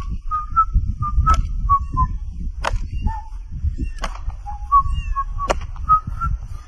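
A man whistling a marching tune in short clear notes that step up and down in pitch, over a low rumble, with a few sharp clicks scattered through.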